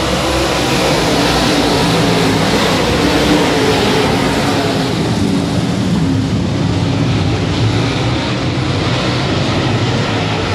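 A pack of dirt late model race cars under power around the track, their V8 engines running together in a loud, continuous drone.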